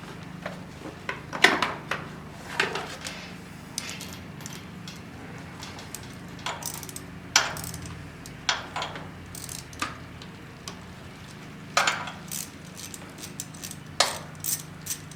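Irregular metallic clinks and knocks of hand tools and small bolts being handled while the air box fasteners are undone, over a steady low hum.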